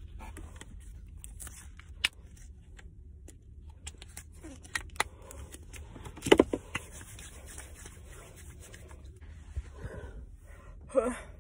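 Handling noise from a phone being moved about inside a car: scattered clicks, scrapes and rustles over a faint low hum, with the loudest knocks about six seconds in.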